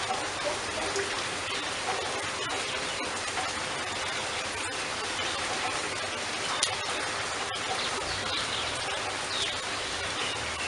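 Steady rain: an even hiss of rainfall with many scattered drop ticks.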